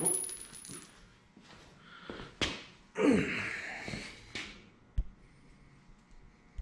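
Sheet-metal race-car fender panel being handled: lifted off its quarter-turn fastener mounts and set back on. A high metallic ring dies away at the start, then come a few sharp knocks and a short rustling wobble of the panel about three seconds in.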